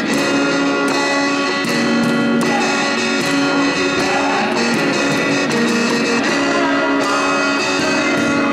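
Live acoustic band music: a strummed acoustic guitar with held melody notes over a steady percussive beat.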